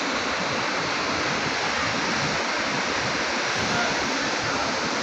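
Fast white-water mountain river rushing below: a steady, unbroken rush of water.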